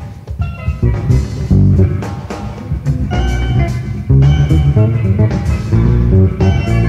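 Live jazz-fusion band playing, led by a busy electric bass line with drum kit behind it; the bass notes are the strongest part of the sound.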